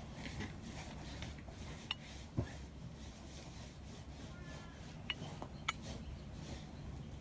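Lint roller rolled and rubbed over a pillow and bedding: soft rustling of fabric, with a few sharp clicks and taps, the loudest about two and a half seconds in.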